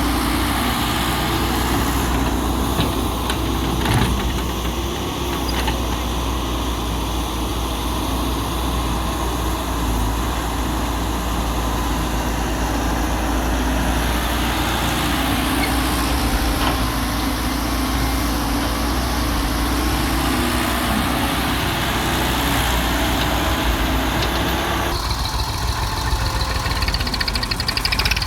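Heavy diesel machinery running steadily, an excavator working alongside a tractor. About three seconds before the end the sound changes and a faint rising whine comes in.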